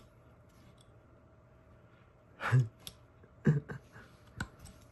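A man sighs heavily twice, about two and a half and three and a half seconds in, while he struggles to carve very hard wood with a knife. A sharp click comes near the end.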